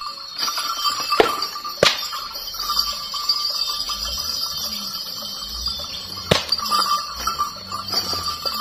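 Sarung whip (a twisted-cloth pecut) cracked three times: two sharp cracks about a second and just under two seconds in, and a third about six seconds in.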